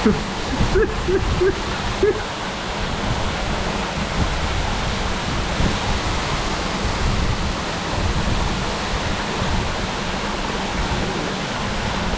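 Waterfall pouring steadily into a pool, a constant rushing of falling water.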